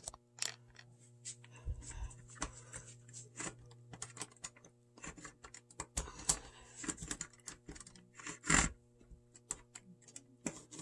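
Scattered light plastic clicks and clacks of a Walthers Conrail model diesel locomotive being handled and pressed back onto the track after derailing at a switch, its wheels tapping on the rails. There is one louder clack a little after eight seconds, over a steady low electrical hum.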